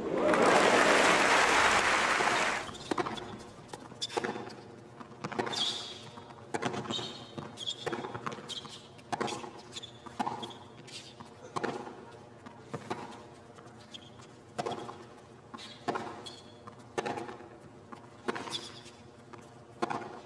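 Crowd applause for about the first two and a half seconds. Then a tennis rally: the ball is struck back and forth by racquets about once a second, with brief high squeaks of players' shoes on the hard court between the hits.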